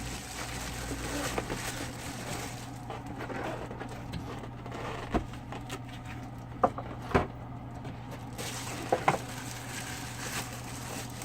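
Cardboard and plastic packaging rustling, with a few scattered light knocks and clicks as a coffee maker is handled and pulled out of its box.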